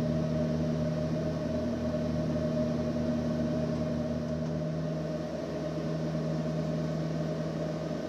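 Redbird FMX full-motion flight simulator running, its sound system playing a steady simulated single-engine piston aircraft drone in cruise. A low throbbing pulse under the hum fades out about five seconds in.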